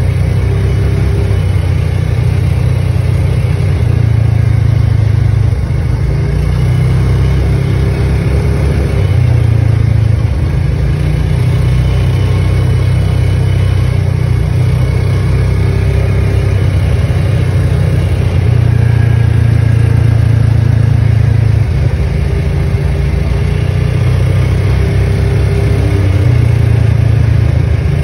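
Side-by-side UTV's engine and drivetrain running steadily at cruising speed, heard from inside its cab, the engine note shifting up and down slightly with the throttle.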